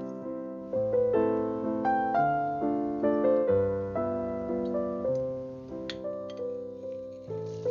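Background piano music: a gentle melody of single struck notes, each ringing and fading before the next.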